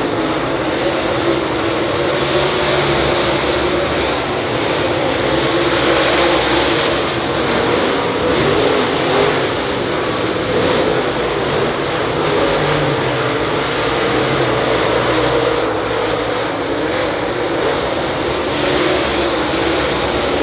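A pack of dirt late model race cars running at racing speed, their V8 engines blending into one loud, continuous engine sound that wavers and swells in pitch as cars go by.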